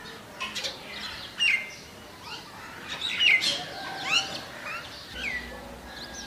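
Small birds chirping: a scatter of short, sweeping chirps, several overlapping, the loudest dropping quickly in pitch.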